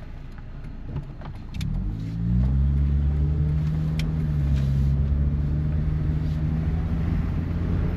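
Honda Civic EF sedan's four-cylinder engine heard from inside the cabin on a test drive after a tune-up: it pulls up through the revs about a second and a half in, then holds a steady drone. A few sharp clicks come before the engine rises.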